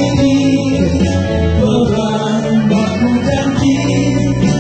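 Live music: men singing into microphones over an electronic keyboard accompaniment.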